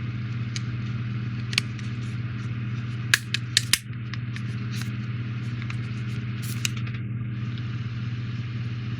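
Plastic model kit parts clicking and tapping as a hull section is handled and pressed into place, with a few sharp clicks bunched about three seconds in, over a steady low electrical hum.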